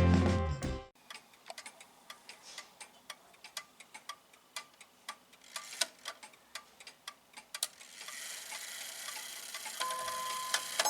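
Soviet Jantar mechanical pendulum wall clock ticking steadily after a service, its escapement clicks sharp and clear; background music fades out in the first second. A faint steady hiss and hum come in near the end.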